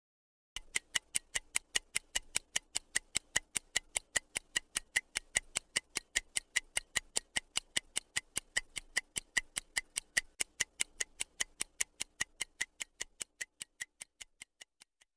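Stopwatch ticking sound effect: sharp, even ticks at about three a second, used as a countdown timer, growing fainter over the last second or so before stopping.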